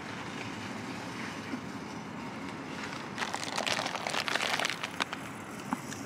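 Steady outdoor parking-lot background with the hum of vehicle traffic, and a few brief, hissy scuffing noises about halfway through.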